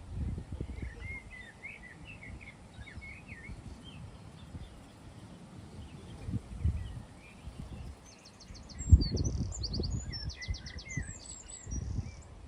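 Small birds chirping and singing, with a run of quick high chirps near the end, over wind buffeting the microphone in low gusts, the strongest gust about nine seconds in.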